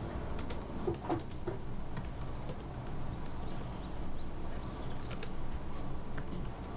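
Typing on a computer keyboard: scattered, irregular keystroke clicks over a steady low background hum.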